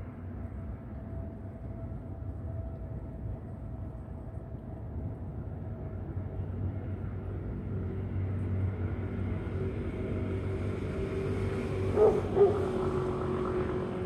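Low rumble of a passing engine, building up and reaching higher over several seconds before fading near the end. Two short, loud sounds close together come about twelve seconds in.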